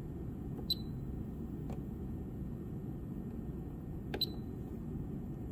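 Two short electronic key beeps from a digital oscilloscope's front panel, one about a second in and one near the end, each starting with a button click as a menu soft key is pressed. A fainter click falls between them, over a steady low background hum.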